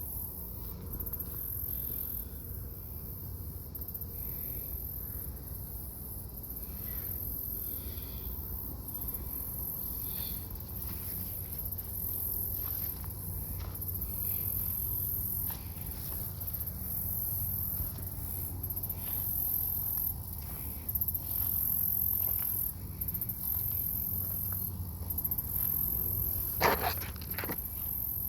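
Steady high-pitched chorus of insects trilling, over faint scattered clicks and a low rumble. Near the end a brief, loud pitched call cuts in.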